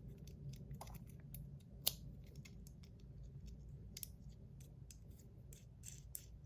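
Scattered small clicks and light scraping of fidget spinner parts being handled as the buttons are fitted back into the spinner, with one sharper click about two seconds in.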